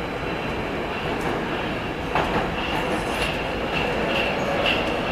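Metrowagonmash 81-765 "Moscow" metro train heard from inside the car as it pulls out of the station and gathers speed: a steady running rumble with a few clicks. From about halfway through, a high ringing tone pulses about twice a second, and the noise swells slightly as the train speeds up.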